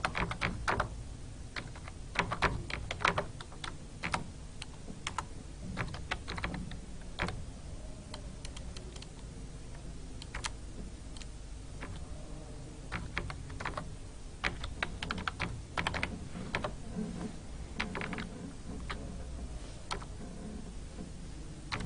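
Typing on a computer keyboard: slow, uneven keystrokes that come in short runs with brief pauses between them.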